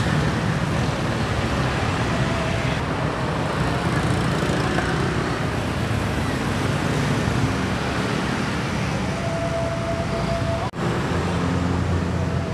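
Steady road traffic noise from cars and motorbikes passing on a busy street. A faint held tone comes in about three-quarters of the way through, and the sound drops out for an instant just after it.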